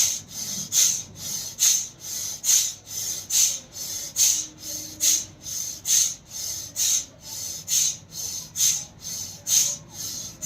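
A person breathing hard and fast in a pranayama exercise, forcing each breath in and out in quick rhythm. A loud hissing breath comes a little more than once a second, with a softer one between each.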